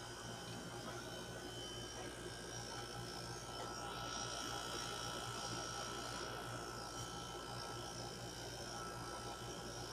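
Vogga air conditioner running with a steady hum and several steady high-pitched tones: the unwanted noise the unit is making.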